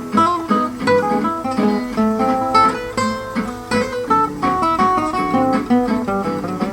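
Acoustic guitar playing a waltz tune: a continuous run of plucked notes with several sounding together over the bass.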